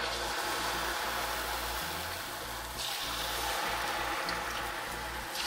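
Battered spiral-cut potato fries deep-frying in hot canola oil in a wok, the oil sizzling and bubbling steadily. The sizzle grows brighter about three seconds in.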